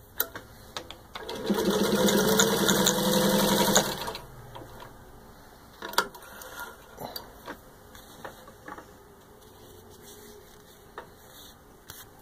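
1935 Singer 15-91 sewing machine stitching through four layers of leather: its motor speeds up and runs steadily for about three seconds, then stops. A few light clicks and knocks follow as the machine is handled and the leather is pulled out from under the needle.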